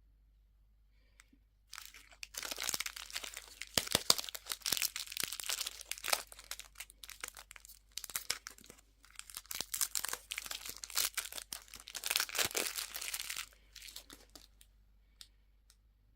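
A candy wrapper crinkling and tearing as it is unwrapped by hand, in irregular crackling bursts with short pauses, then a few faint clicks near the end.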